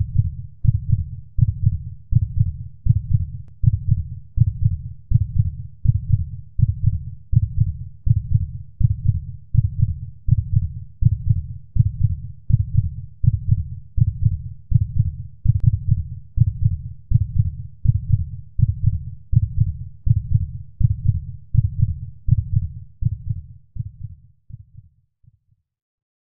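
Heartbeat sound effect: a steady, even low thudding pulse that fades out near the end.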